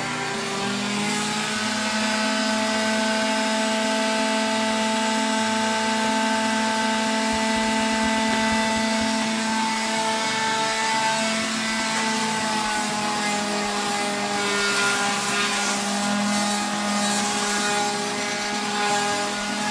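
Electric orbital sander running steadily against weathered wood, sanding off the old flaking wood glaze: a continuous motor whine over a rasping hiss, its pitch wavering slightly as the load changes.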